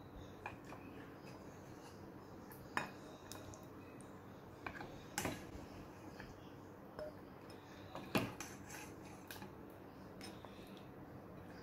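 A ladle clinking against a cooking pot and a ceramic serving bowl as thick curry is dished out: scattered sharp clinks, three of them louder than the rest.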